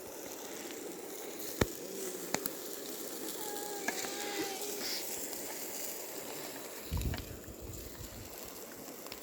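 Barbecue fire crackling and food sizzling on the grill, a steady hiss with a few sharp pops. A brief low rumble comes near the end.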